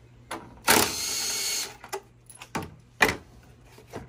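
A 3/8-inch cordless power tool with a 10 mm socket runs with a steady whine for about a second, backing out a bolt. A few sharp clicks and knocks follow, the loudest near the end.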